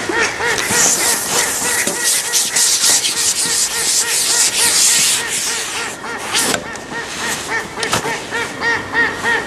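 Waterfowl calling over and over in short honking calls, several a second, over a loud rushing hiss that eases about six seconds in. Two sharp knocks sound near the end.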